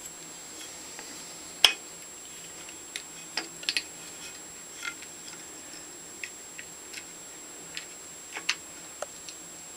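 Scattered small metal clicks and taps as a Stanley No. 113 compass plane's cast-iron body and flexible steel sole are handled and worked by hand, the loudest click about two seconds in.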